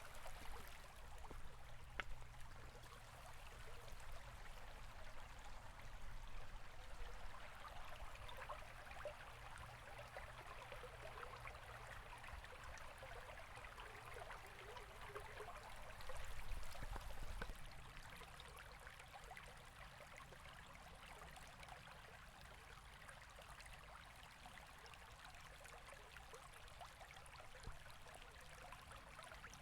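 River water flowing: a steady, faint babbling and trickling rush, with a brief low rumble swelling about halfway through.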